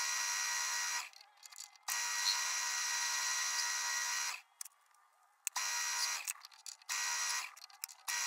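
Metal lathe cutting stainless steel rod: a steady, high buzzing whine from the tool in the cut, in three stretches of one to two and a half seconds that stop abruptly in between as the tool is fed in and backed off.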